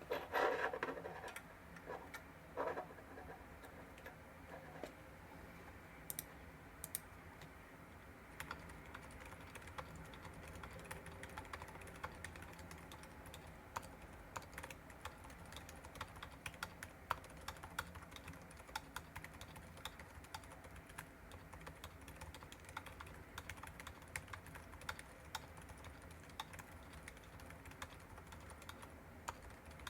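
Continuous typing on a Wuque Studio Mammoth75 mechanical keyboard with stock Silent Alpaca silent linear switches on a polycarbonate plate and GMK Cafe keycaps: soft, muted keystrokes. There are a few louder knocks in the first seconds.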